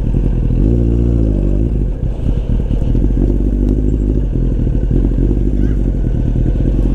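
Kawasaki Ninja sport bike's engine running at low speed while ridden slowly over paving stones, with a brief rise in revs about a second in before it settles back.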